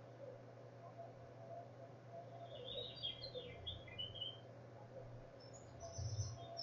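Faint bird chirping: a burst of short chirps in the middle and higher chirps near the end, over a steady low hum.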